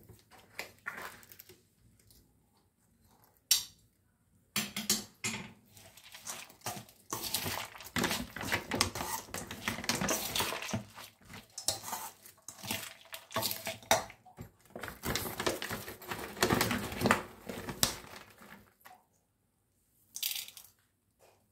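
Puffed rice with chopped vegetables being stirred and tossed in a stainless steel bowl: steady dry rustling, with a steel spoon clinking and scraping against the bowl. The mixing starts a few seconds in and stops near the end, with one short burst after it.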